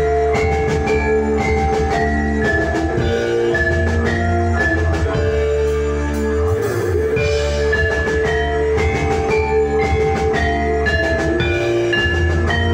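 Live instrumental music from a gamelan-and-band ensemble: a quick melody of notes struck on mallet-played keyed bars over electric guitar, keyboard, drums and a steady bass.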